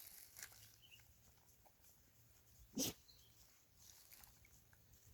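A single short dog bark about three seconds in, against near quiet with a faint steady hum.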